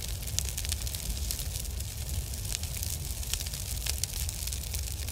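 Crackling fire sound effect: a steady low rumble with many small sharp pops scattered throughout.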